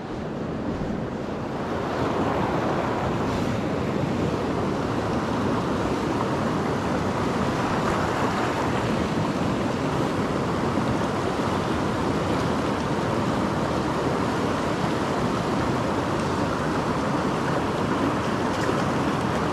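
Mountain creek water rushing steadily, a little softer for the first couple of seconds.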